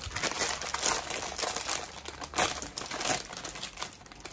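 A Taqueritos snack-chip bag crinkling as it is handled and opened: a steady run of irregular crackles.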